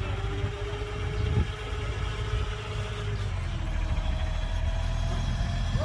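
The diesel engine of a heavy earthmoving machine runs steadily, a deep low rumble with a faint higher whine over it.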